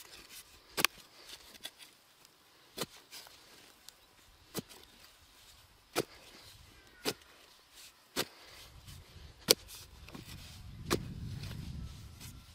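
Metal hoe blade chopping into dry, stony soil again and again as a planting hole is dug, about one sharp strike every second and a half. A low rumble rises under the strikes in the last few seconds.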